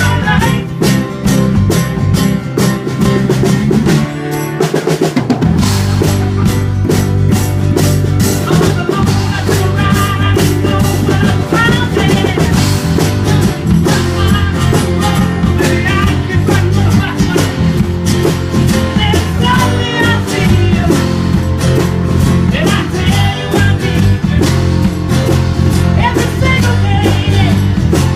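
Live band playing a song: strummed acoustic guitars, electric bass and a drum kit, with several men singing into microphones. The deep bass fills in about five seconds in.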